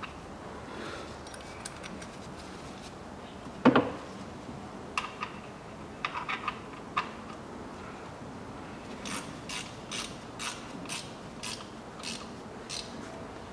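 Ratchet wrench clicking in a run of short even strokes, about two a second, as a fitting is tightened, with a single loud metal knock and a few scattered tool clicks earlier on.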